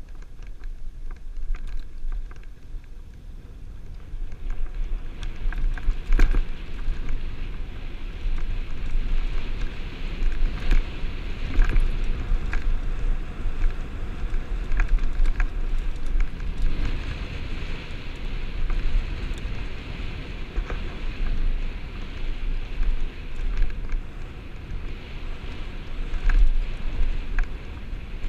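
Mountain bike rolling over a rocky dirt trail, heard from a helmet-mounted camera. Wind buffets the microphone in a continuous low rumble, the tyres crunch on gravel, and the bike gives scattered knocks and rattles over rocks.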